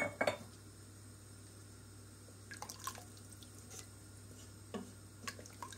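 Wooden spoon stirring a watery tomato-and-bean stew in a stainless steel pot, with light liquid sounds and a few faint knocks of the spoon on the pot. A single sharp knock comes at the very start.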